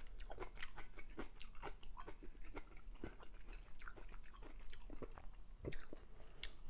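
A person chewing a mouthful of Chinese chicken curry with broccoli and rice: a steady run of short, irregular wet smacks and clicks from the mouth.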